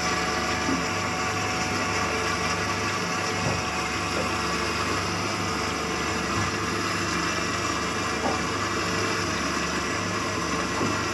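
Honda 150 four-stroke outboard motor idling steadily, under an even hiss.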